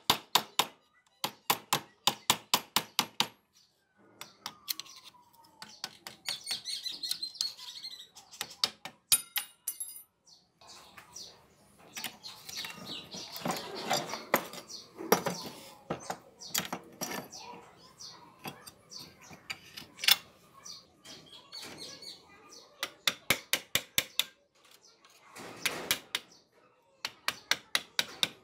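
A chisel is tapped in quick runs of sharp metal strikes against the riveted bolster of an old, rusty butcher cleaver's handle, working it loose. In between there is rougher scraping.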